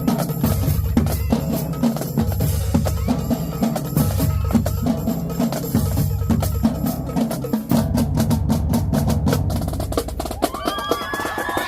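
Marching drumline playing a cadence: bass drums pounding a steady rhythm under snares and tenor drums. About eight seconds in the snares break into a quick run of rapid strokes, and a pitched sound comes in near the end.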